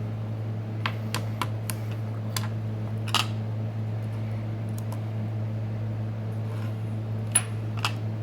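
Light clicks and taps of small parts and tools being handled during a phone repair, about eight in all, the sharpest about three seconds in and near the end, over a steady low hum.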